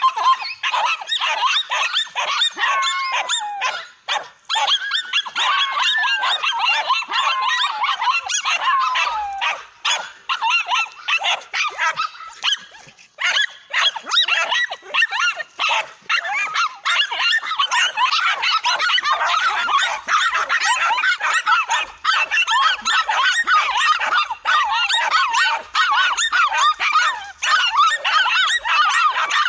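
Several dogs barking and yapping at a cornered tegu lizard, many high-pitched yaps overlapping in a nonstop frantic chorus. The barking dips briefly twice, about four seconds in and again about thirteen seconds in.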